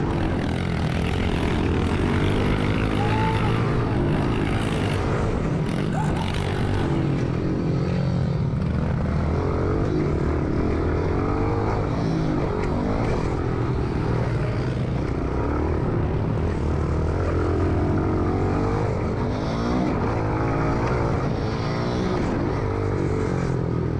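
Small 110cc pit bike engine revving continuously, its pitch rising and falling again and again as the throttle is opened and closed.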